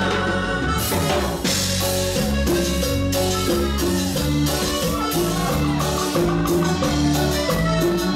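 Live band playing an instrumental passage: drum kit, electric bass and a keyboard melody in a Latin style, with no singing.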